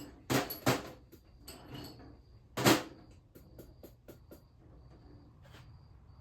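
Knocks and clicks of engine parts and tools being handled and set down during an engine rebuild: two sharp knocks near the start, a louder one a little under three seconds in, then a quick run of small ticks.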